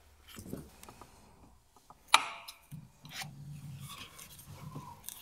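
A metal wrench being handled and fitted onto the hex of the accessory-belt tensioner: light scraping and rubbing, with one sharp clink about two seconds in.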